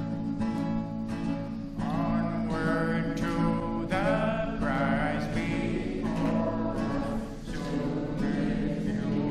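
Church music: an acoustic guitar strumming chords, with a wavering melody line joining about two seconds in.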